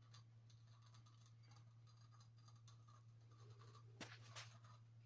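Near silence: room tone with a faint steady low hum and small scattered rustles, and a soft click about four seconds in with another just after.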